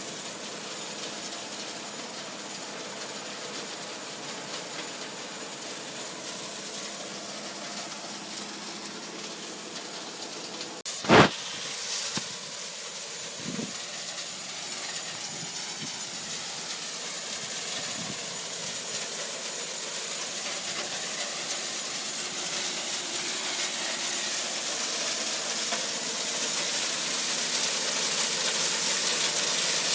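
Spring Industrial sand washer running: a steady hiss of rushing water over machinery noise, growing louder toward the end. A single sharp knock about eleven seconds in is the loudest sound.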